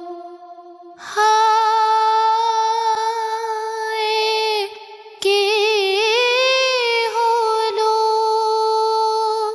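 A high solo voice singing long held notes in two phrases, the second with a wavering vibrato and a brief rise in pitch in its middle.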